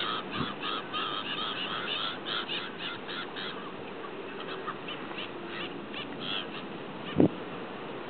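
A flock of slender-billed gulls calling: a quick run of many short calls for the first few seconds, then fewer and more spaced out, over a steady hiss. A single loud thump about seven seconds in.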